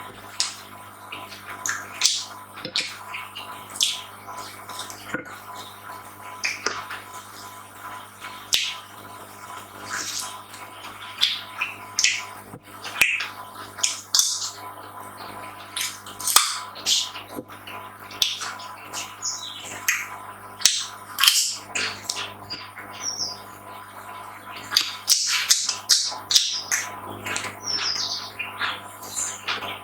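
Close-miked eating sounds: chewing and wet mouth smacks and clicks, coming irregularly a few times a second over a faint steady hum.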